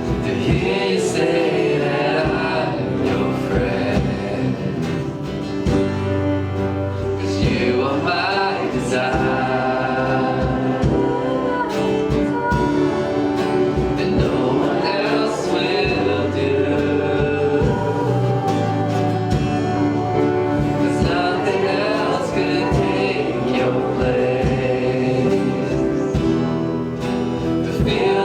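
Congregational worship song: voices singing together over a band with guitar.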